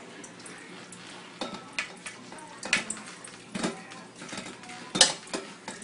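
Kitchen utensils knocking and clinking against a mixing bowl: a handful of irregular sharp knocks, the loudest about five seconds in.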